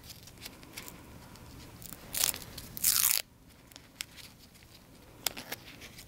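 Crinkling and rustling from gloved hands handling the paper-backed adhesive pad of a StatLock catheter securement device: two short crinkles about two and three seconds in, then a couple of light clicks near the end.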